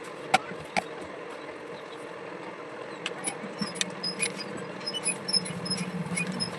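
Sharp clicks and light ticks of small parts being handled during table fan repair, over a steady mechanical hum.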